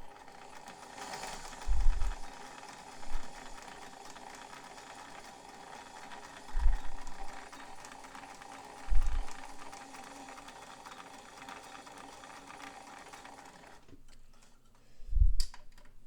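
White Model 510 sewing machine, driven by its 1.3-amp motor, sewing a wide zigzag stitch at a slow, steady pace, then stopping about two seconds before the end. A few short low thumps sound over it and once more after it stops.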